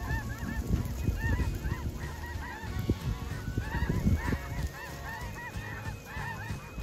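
A flock of snow geese calling in flight: many short, high honks overlapping, with a low rumble of wind on the microphone underneath.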